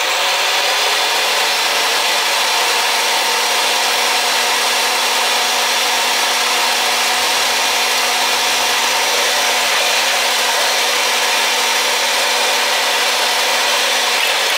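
Oster Power-Matic power pipe-threading machine's electric motor spinning up and then running steadily, with a whine and gear noise, driving the die head in reverse to back the die off the freshly cut pipe thread.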